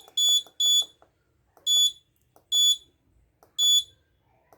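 Short high-pitched beeps from the school bell project's buzzer, five at uneven spacing, each about a quarter second long. Faint clicks come with them: push buttons being pressed to step the clock's minutes while setting the time.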